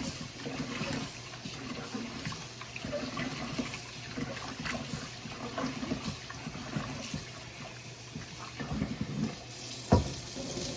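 Rice being washed by hand in a pot of water: water sloshing and the grains swishing, with many small ticks. A sharp knock comes near the end.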